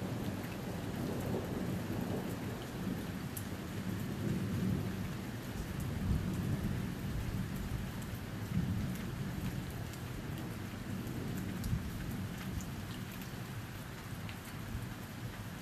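Steady rain falling during a thunderstorm, with low rolling thunder that swells several times and slowly fades toward the end.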